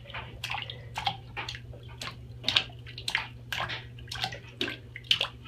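Bath water splashing and dripping as a baby plays in the tub, a string of small irregular splashes and drips, over a steady low hum.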